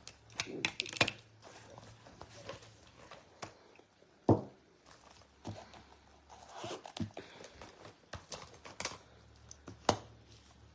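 Handling noises: rustling, light clicks and a few sharp knocks as a pouch is rummaged through and small objects are set on a plastic-covered table. The sharpest knocks come about four seconds in and near the end.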